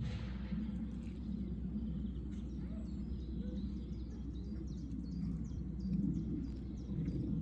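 Outdoor farmyard ambience: a steady low rumble with many short, high bird chirps scattered throughout.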